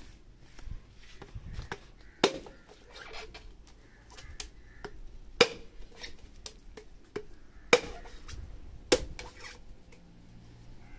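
A machete chopping into a green tender coconut held in the hand: four sharp strikes a few seconds apart, with lighter knocks and taps between them, as the nut is split open for its soft flesh.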